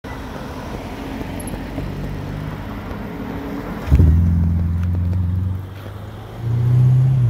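A car engine runs at moderate level at first. About four seconds in, the Ferrari SF90 Stradale's twin-turbo V8 comes in suddenly and loudly as it accelerates past. It eases off briefly, then revs up hard again near the end as the car pulls away.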